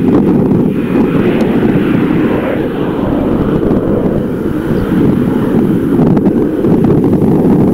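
Airbus A321 jet engines running at taxi power as the airliner turns on the runway, heard under heavy wind buffeting on the microphone. A higher engine hiss swells about a second in and eases off a couple of seconds later.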